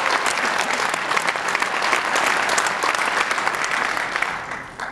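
An audience applauding, dense steady clapping that dies away near the end.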